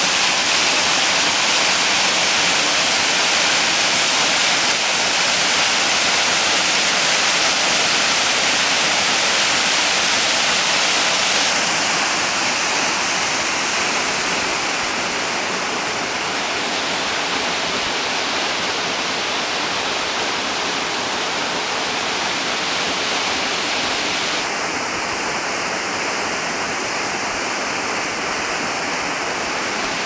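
Waterfall: a steady rush of water pouring over rock, a little softer partway through.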